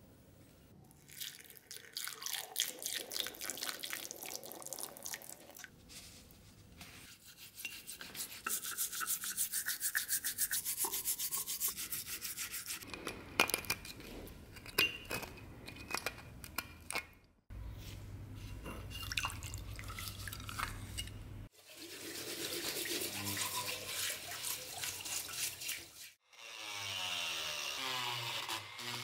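Toothbrush bristles scrubbing an antique metal powder box coated in tooth powder and detergent, in several bouts separated by short breaks. Near the end a small handheld rotary tool starts with a steady whine, its bit grinding petrified mortar out of the box.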